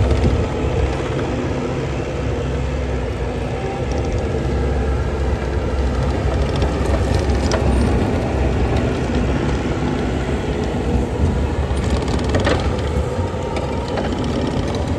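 Bobcat T770 loader's diesel engine running steadily, with a few sharp metallic clanks, the clearest about twelve and a half seconds in.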